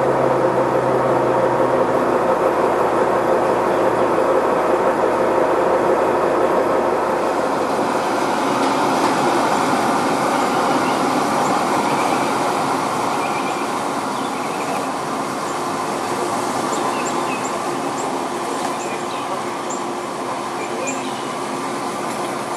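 Loud, steady engine rumble that slowly fades, its low hum dropping away a few seconds in. Birds chirp over it in the second half.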